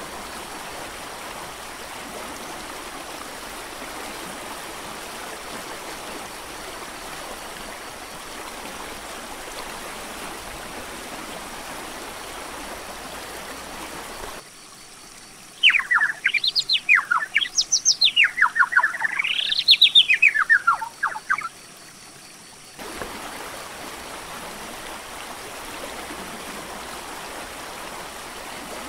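Steady rushing of a mountain creek. About fourteen seconds in it breaks off for a loud, fast songbird song of quick rising and falling notes lasting about six seconds, then the creek's rush resumes.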